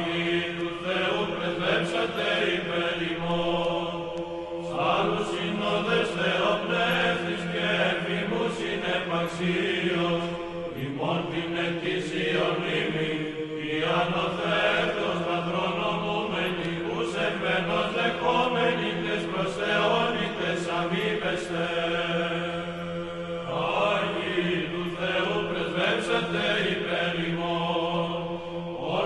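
Background music of church chant: voices singing a slow melody over a steady held drone note, in the style of Orthodox Byzantine chant.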